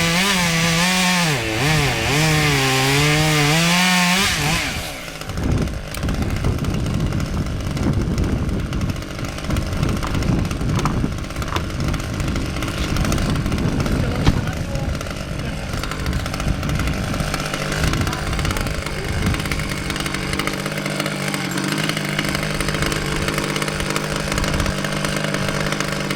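Husqvarna T540 XP top-handle two-stroke chainsaw running at full throttle through wood, its pitch wavering under load, for the first four seconds or so. It then comes off the cut and drops back. In the second half it settles to a steady idle.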